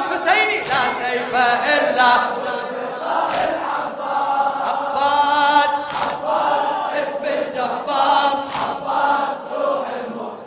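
A man chanting an Arabic religious text into a microphone, with a group of voices chanting along.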